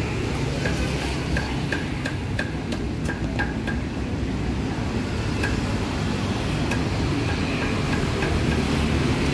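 Steady low rumble of street traffic, with a run of small sharp clicks over the first few seconds and a few scattered ones later.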